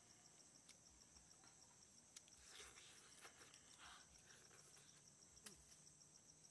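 Faint, steady high-pitched insect chirring with a fine even pulse, over quiet forest ambience with a few soft clicks. About two and a half to four seconds in, soft chewing and handling noises come from a person eating an egg with his fingers.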